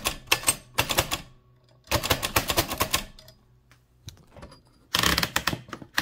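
A 1925 AEG Mignon 4 index typewriter being typed quickly, its impression key and type cylinder clacking out characters one after another. The clacking comes in bursts: two short ones, a longer run about two seconds in, a lull with a few faint clicks, then another fast run near the end.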